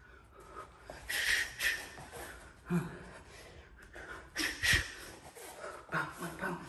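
A man's short, sharp exhales through the nose and mouth as he throws punches: a string of about seven quick hissing breaths, with hard breathing between them.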